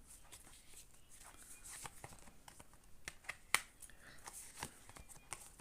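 Faint clicks and rustles of tarot cards being handled, with a sharper tap about three and a half seconds in.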